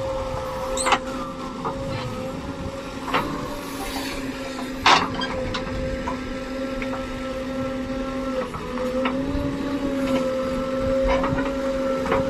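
JCB backhoe loader's diesel engine running steadily under work, its pitch dipping briefly and recovering about two-thirds of the way through. A few sharp knocks sound over it, the loudest about five seconds in.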